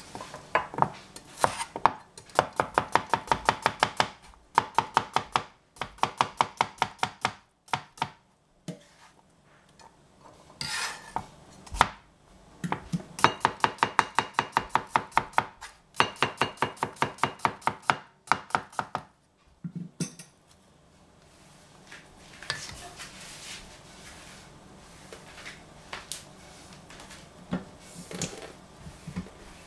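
Chinese cleaver slicing cucumber into thin rounds on a plastic cutting board: quick, even knocks of the blade on the board, several a second, in runs of a few seconds with short pauses between. In the last third only a few lighter, scattered knocks are heard.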